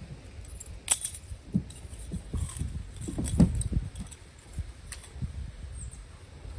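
Light metallic clinks and jingling from a dog's collar and leash hardware as it is handled, with a sharp click about a second in and another near the end. Dull low thumps and rustling of handling and movement, loudest about halfway through.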